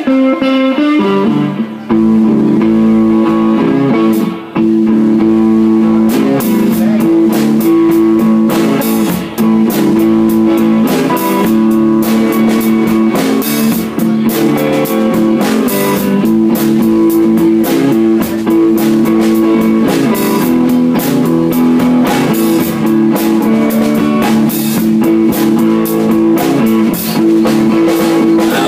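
Live electric guitar playing a blues riff, joined about six seconds in by a drum kit with cymbal and snare hits, the two then playing a steady groove together.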